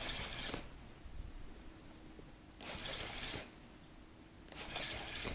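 Spinning reel being cranked in three short bursts of under a second each, with pauses of about two seconds between: the stepped retrieve of a jig.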